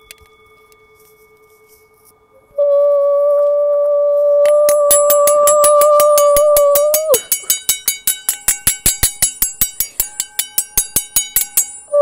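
Electronic tones. After a quiet couple of seconds, a loud steady pure tone sets in and is joined by a fast, even train of short bright pulses. About seven seconds in, the tone bends downward and stops while the pulses carry on.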